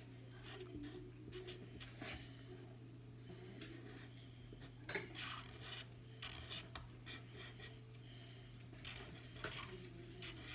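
Sharpie marker tip scratching across paper in short, irregular strokes as a line drawing is traced, over a faint steady hum.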